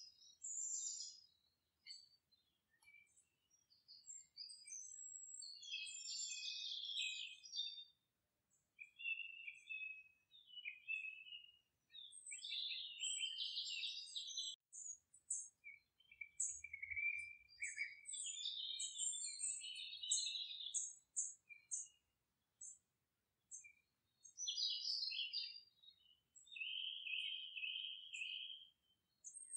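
Birds calling and chirping, with runs of short high chirps and longer, lower calls coming in bursts with brief gaps.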